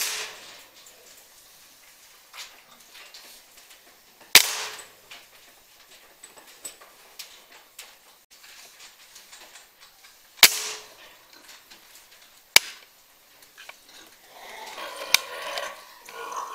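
PCP air rifle firing three sharp shots, the first at the start, the next about four seconds later and the third about six seconds after that, then a smaller sharp click. Near the end, a couple of seconds of scuffling noise.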